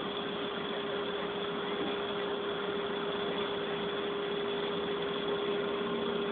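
A vehicle engine idling steadily, with a constant hum over an even rumble.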